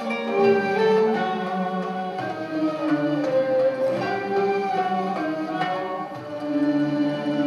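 A Turkish classical music ensemble playing an instrumental passage, with no singing.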